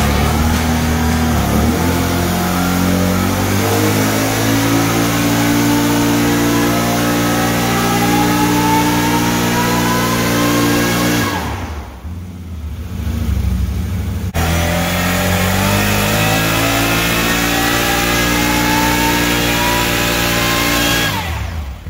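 Can-Am Renegade 850 ATV's Rotax V-twin engine making two wide-open-throttle pulls on a hub dyno, each a whine climbing in pitch for about ten seconds. About halfway through, the throttle closes and the sound drops away for about three seconds before the second pull.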